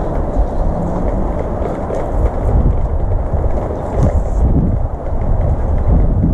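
Steady low rumble of wind buffeting the body-worn camera's microphone, with the soft scrub of a water-fed pole brush working over conservatory glass.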